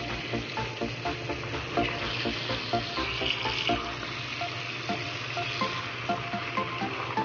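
Tap water running into a plastic basin of vegetables as they are rinsed and swished by hand: a steady splashing hiss.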